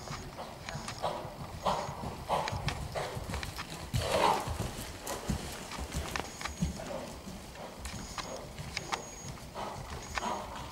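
Dressage horse moving on soft sand arena footing: dull hoofbeats and puffs in a steady stride rhythm, about one every two-thirds of a second, with a louder puff about four seconds in.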